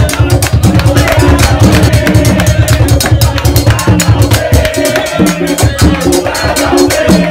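Background music with a steady, busy drum beat over a repeating bass line.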